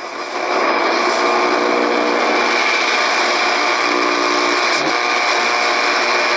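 Steady shortwave static hiss from an Icom IC-R8500 communications receiver in AM mode, tuned across empty frequencies with no station on them. A few faint steady whistles sit in the noise, which swells up about half a second in as the last station is tuned away.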